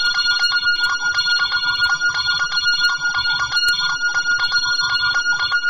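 Homemade electronic music with an alarm-like feel: steady high held tones over a fast repeating pattern and a low pulsing beat.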